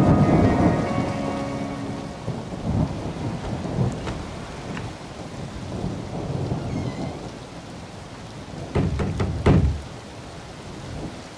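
Rain falling with rolling thunder, loudest at first and dying away, with two more low rumbles near the end.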